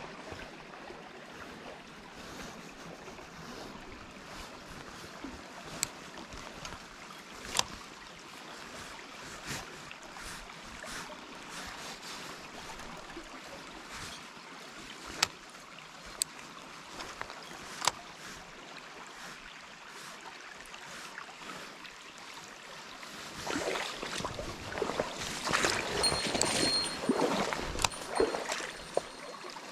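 Mountain stream flowing steadily, with a few sharp clicks in the first half and the water noise growing louder and busier for the last few seconds.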